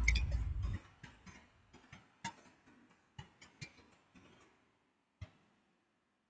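Close handling noise: a rustle with low thumps for the first second, then a few scattered sharp light clicks and taps, then silence for the last second or so.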